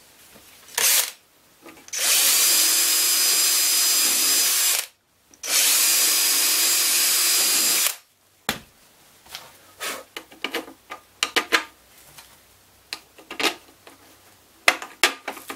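Cordless DeWalt drill running in two steady bursts of about three seconds each, with a short blip before them, as it bores two holes through a plastic stormtrooper helmet shell. Light clicks and handling of the plastic follow.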